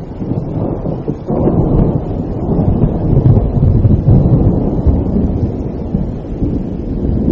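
Thunder rumbling over steady rain: the low rumble swells about a second in and eases off after the middle.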